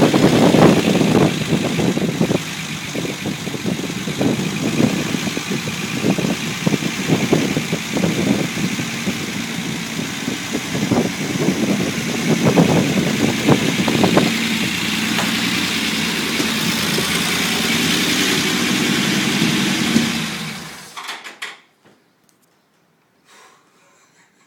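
Unimog 404 petrol straight-six engine running unevenly, with irregular surges, on its first run after a rebuild and rewire. It settles to a steadier run, then shuts off near the end and dies away to near silence.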